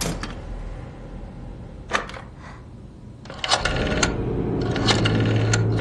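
Mechanical clicks of an old brass rotary telephone: a click as the handset is set down, then the dial turned and clicking back in short runs. A low steady background music drone comes in about halfway through.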